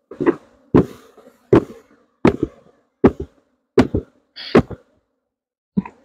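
Wooden beehive box being bumped down hard, again and again, to knock the bees off: about seven sharp wooden knocks, roughly one every three-quarters of a second, some doubled, then a pause and one more knock near the end. The steady hum of the honeybees runs underneath.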